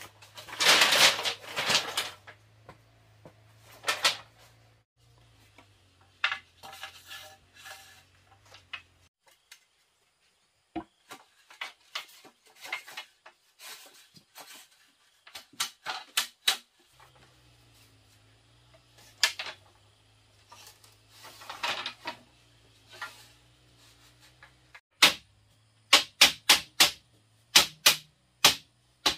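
Hand tools striking and working bamboo: scattered sharp knocks, with a longer noisy burst about a second in, then a quick run of about ten sharp strikes near the end.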